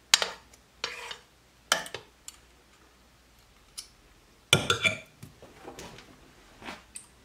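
A metal spoon clinking and scraping against a glazed stoneware slow cooker crock as thick cake batter is spooned in. There are a few sharp clinks in the first two seconds, then a louder ringing clatter about four and a half seconds in.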